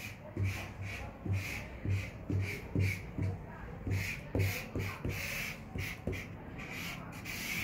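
Chisel-tip paint marker rubbed in short hatching strokes on kraft paper, about two scratchy strokes a second, each with a soft thump.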